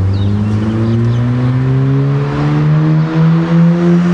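Ford Fiesta Mk6 with an upgraded aftermarket exhaust accelerating in one gear, its exhaust note loud and rising steadily in pitch.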